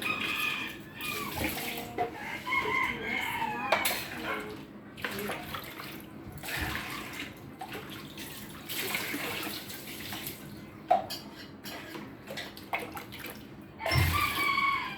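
Tap water running into a sink while dishes are washed, with plates and cups clinking now and then. A rooster crows in the background at the start, again a few seconds in, and near the end.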